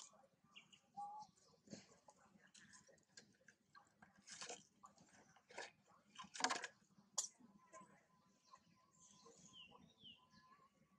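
Quiet outdoor ambience: scattered soft rustles and clicks, the loudest about four and six seconds in, and a few short high chirps near the end.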